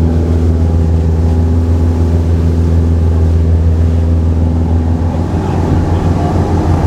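A charter fishing boat's engine running steadily under way, a constant low drone.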